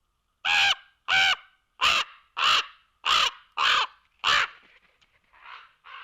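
Common raven calling: a quick series of seven loud, harsh calls, then two fainter ones near the end.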